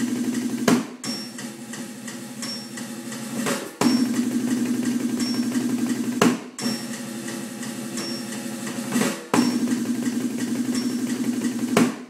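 Two drummers playing fast single-stroke rolls on drums at 173 beats per minute, in short loud bursts of about two and a half seconds separated by quieter stretches of drumming. A short high beep, like a metronome click, recurs at a regular pace throughout.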